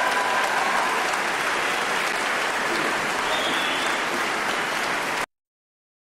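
Audience applauding steadily, cut off abruptly about five seconds in.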